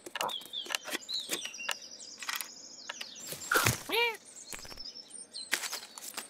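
Cartoon sound effects for a cat chasing a squirrel up a tree: high squeaky chirps and chattering, quick scratchy clicks of climbing, and a squeaky tone that rises and falls about four seconds in.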